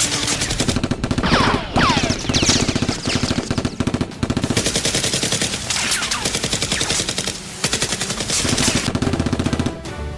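Rapid bursts of automatic gunfire, with a few falling whistling sweeps mixed in around the second and sixth seconds. The firing cuts off just before the end.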